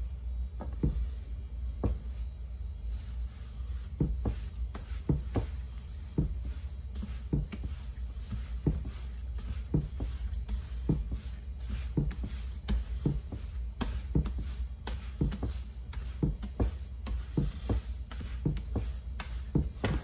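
Hands kneading a soft, still-sticky bread dough on a marble worktop: rubbing and squishing with a dull thump about one and a half times a second, over a steady low hum.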